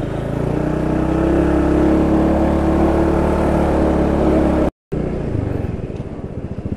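Motorcycle engine running under way, with a steady held tone that grows louder through the middle. The audio drops out completely for a moment about two-thirds of the way in, then the engine comes back quieter.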